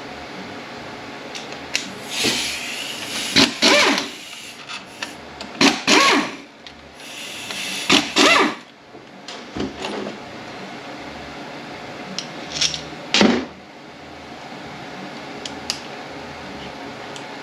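Power driver spinning out T30 Torx bolts in a series of short bursts, between light clinks of tools and metal parts.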